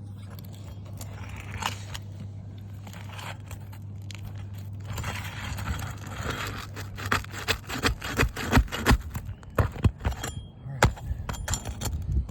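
Pry bar scraping and knocking under asphalt roof shingles to work the roofing nails loose: a quick run of sharp metallic clicks, knocks and scrapes starting about five seconds in. Before that, a steady low hum with light scraping.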